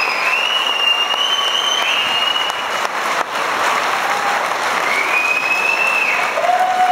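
Audience applauding steadily, with a few long high-pitched cheers over the clapping near the start and again near the end.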